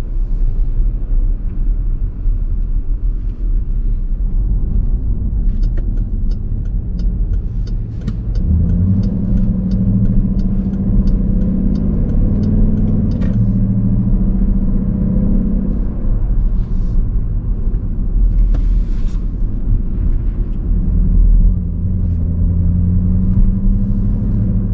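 Dodge Durango R/T's 5.7L HEMI V8 running through its exhaust with a steady low drone, the note swelling stronger twice. A regular ticking, about three a second, runs through the middle.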